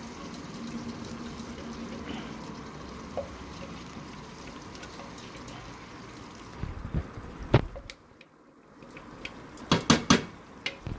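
Masala sizzling steadily in a pot as marinated chicken goes into it. It is followed by a few sharp clatters against the pot, about seven and again about ten seconds in.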